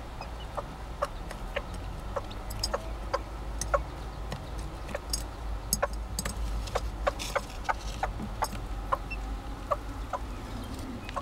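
Serama hen clucking to her chick: short, soft clucks repeated about two to three times a second.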